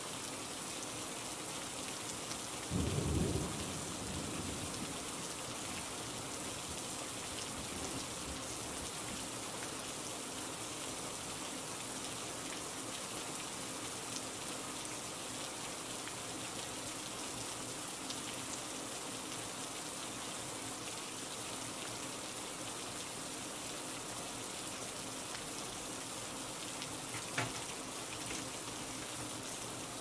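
Steady rain, with a short low rumble of thunder about three seconds in. A single sharp tap sounds near the end.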